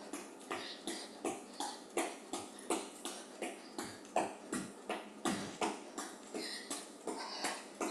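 Running shoes landing on an exercise mat in a quick, even rhythm of short thuds, about two to three a second, during hopping low kicks, with hard breathing mixed in.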